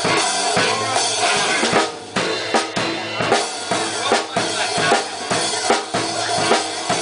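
Live band playing a song intro, with a drum kit keeping a steady beat of snare and bass-drum strikes over the other instruments.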